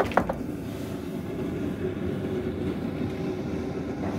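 A few light knocks as a hand taps the car's steel door sill, over a steady low hum that runs on throughout.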